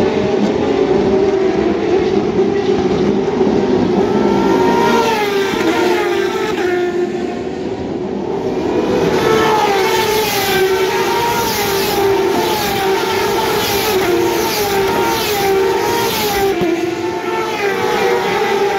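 A pack of Turismo Carretera race cars passing close by at speed. Many engines overlap, their pitches rising and falling as the cars accelerate and go by, with a brief lull a little before the middle before the next group arrives.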